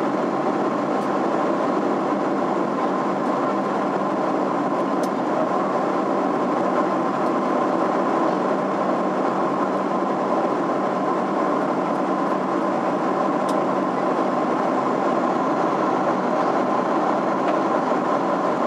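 Steady cabin noise inside a Boeing 767-300 airliner in flight: an even drone of the engines and rushing air, with a steady tone near 1 kHz running through it.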